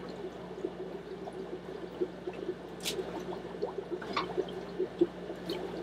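Aquarium water trickling and bubbling in many small irregular drips, over a steady low hum from the fish-room equipment. A couple of sharp clicks about three and four seconds in.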